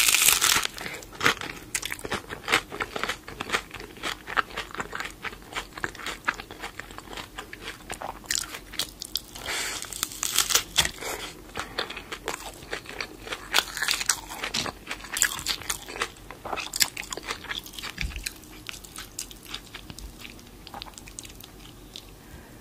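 Crunchy hard-shell taco dripping with nacho cheese sauce being bitten and chewed: a loud crunching bite at the start, then many quick crisp crackles of chewing that thin out near the end.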